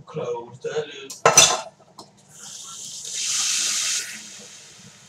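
A metal serving spoon clatters once, loudly, against a skillet of taco meat about a second in. From about two seconds in, the pan gives out a hissing sizzle that swells and then fades away over the next two or three seconds.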